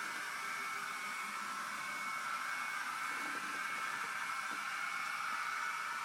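Dapol N gauge Voyager model train's DCC sound decoder playing a steady diesel running sound through the model's tiny speaker, heard as an even, thin hiss-like hum with no changes.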